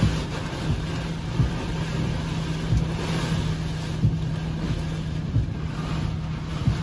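Derecho winds and heavy rain battering a car, heard from inside the cabin: a steady rushing noise with a low steady hum beneath it and a dull thump about every second or so.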